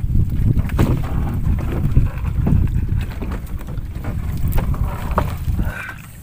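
Wind buffeting the microphone on an open wooden fishing boat at sea, a heavy uneven rumble, with a few sharp knocks from the pole and net gear being handled.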